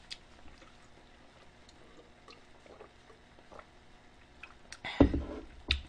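Faint gulps and small mouth clicks of someone drinking from a plastic cup. About five seconds in come a louder knock and then a sharp click as the cup is handled.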